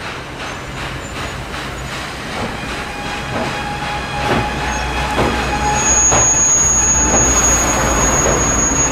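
SY-class 2-8-2 steam locomotive working a train, its exhaust beating in a steady chuff that grows louder. A thin, high, steady squeal, likely the wheels grinding on the curve, joins about halfway through.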